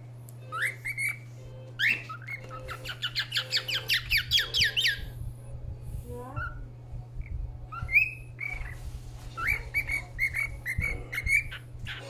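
Young cockatiel whistling in short upward-sliding notes, with a quick run of about a dozen repeated notes partway through: the unpolished whistling of a bird in the early stages of learning to whistle.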